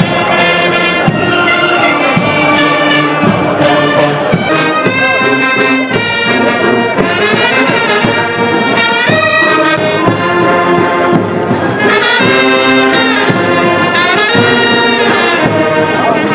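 Brass band of trumpets and trombones playing a tune with long held notes.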